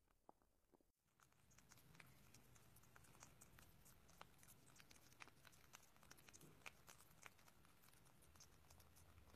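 A rabbit chewing leafy greens: faint, rapid, irregular crunching clicks that start about a second in.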